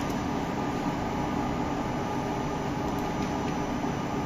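Steady hum and hiss of running factory machinery, even throughout with no strokes or rhythm.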